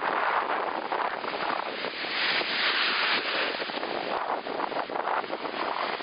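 Wind-driven lake waves breaking and washing up the shore, with a louder surge about two to three seconds in, mixed with strong wind buffeting the microphone.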